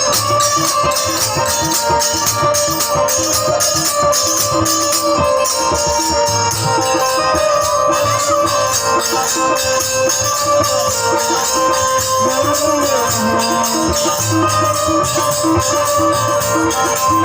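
Instrumental interlude of a Bhojpuri sohar folk song: long held melody notes over fast, steady jingling percussion with a low drum beat.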